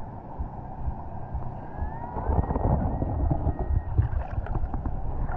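Muffled churning water noise and low rumble, louder from about two seconds in, with scattered knocks and a faint thin steady tone lasting about two seconds.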